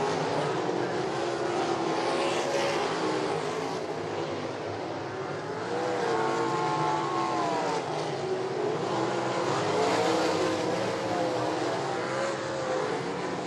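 Several race car engines running at speed on the track, their pitches rising and falling as the cars throttle through the corners and pass.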